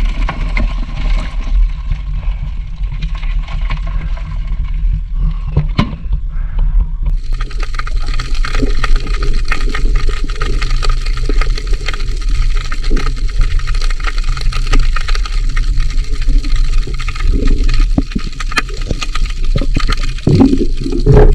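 Water noise from crab hunting in shallow seawater: a steady low rumble, joined about seven seconds in by a dense crackling hiss.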